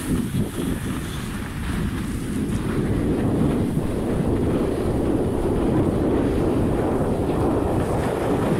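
Wind rushing over a handheld smartphone's microphone while skiing downhill, mixed with the hiss of skis sliding over packed snow. A steady noise that grows a little louder after about two seconds.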